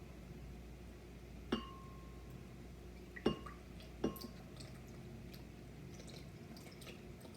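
Glassware clinking and knocking as milk is poured into a blender. Three sharp clinks, the first and third ringing briefly, are followed by a few lighter clicks near the end.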